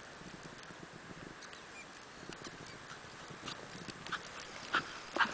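Jack Russell terrier's paws crunching through snow as it runs, a quick irregular patter that grows louder, with the sharpest crunches near the end.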